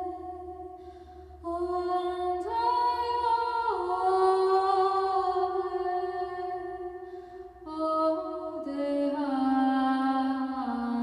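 Slow wordless singing or humming: voices holding long notes in harmony and moving in small steps, a second voice joining a few seconds in, with the line settling lower near the end.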